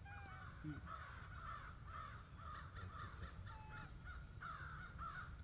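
Animal calls: a rapid run of short repeated notes, about four a second, over a steady low rumble.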